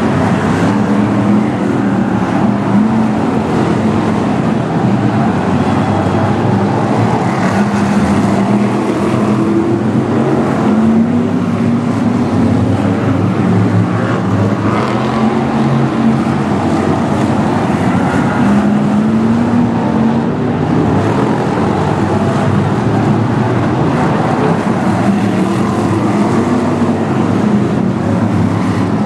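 Several V8-engined BriSCA F1 stock cars running on a shale oval, a dense, continuous engine noise whose pitch keeps rising and falling as the cars accelerate and lift off around the track.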